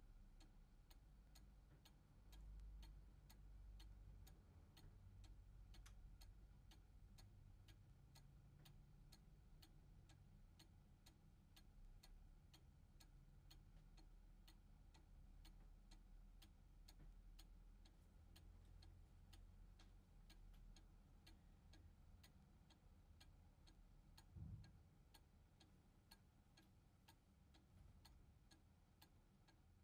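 Faint, steady ticking of a Hönes 8-day mechanical cuckoo clock's pendulum movement, with one soft low thump near the end.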